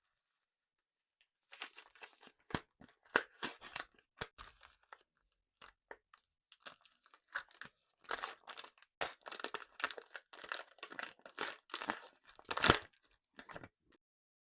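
Close-miked candy crackling and crunching: an irregular run of crisp cracks and crinkles, loudest near the end.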